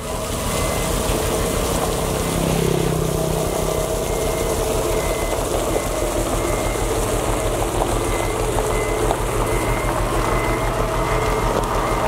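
Diesel engines of motor graders, a Komatsu GD625A and a LiuGong, running steadily under work, with a reversing alarm beeping repeatedly over them.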